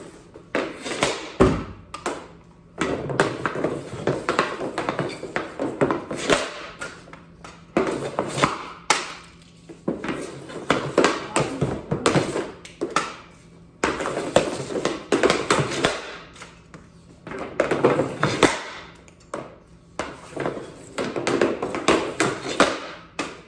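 Ice hockey stick blade working pucks on plastic dryland shooting tiles: quick runs of clacking taps as the puck is stickhandled, broken by sharper cracks as shots are taken.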